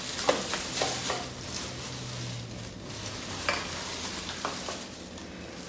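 Thin plastic shopping bag rustling and crinkling as a hand digs through it, with a few sharp clicks.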